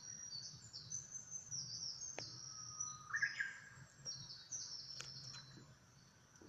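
Small birds chirping: a quick run of short, high-pitched notes, with one lower, rising call about three seconds in. A faint steady low hum runs underneath.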